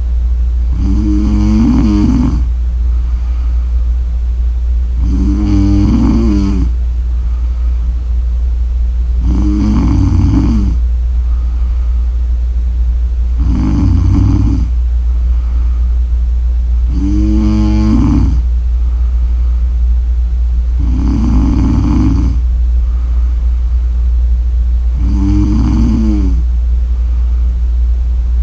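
A woman snoring steadily in deep sleep: seven rhythmic snores, each about a second and a half long, coming about every four seconds. A steady low hum runs underneath.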